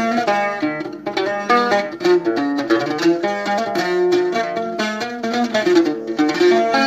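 Solo mandole played with a plectrum: a quick, melodic chaabi instrumental run of plucked notes, with no singing.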